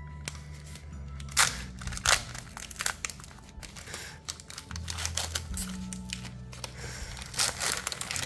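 Foil booster-pack wrapper crinkling and tearing in several short bursts as a Pokémon card pack is opened, over steady background music.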